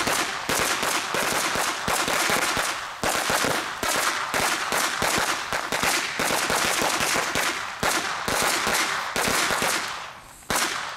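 Lesli firecracker strips going off on the ground: a long, rapid, unbroken volley of sharp bangs that doesn't stop for about nine seconds, then thins out and dies away, with one short last flurry near the end.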